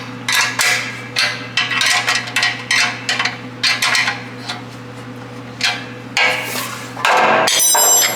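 Repeated hammer taps, about two or three a second and unevenly spaced, then a louder steady noise for about a second near the end, over a low steady hum.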